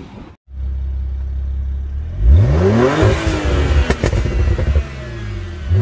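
The 2008 BMW 135i's twin-turbo straight-six, fitted with catted downpipes, idles with a steady low drone, then is revved once about two seconds in, pitch climbing and falling back, with a couple of sharp pops as the revs drop. A second rev starts near the end.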